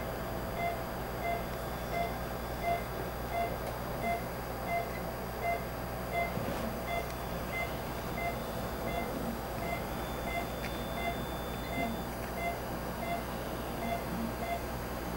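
Patient monitor's pulse beep sounding evenly, about three beeps every two seconds in time with the patient's heartbeat, over a steady hum of equipment.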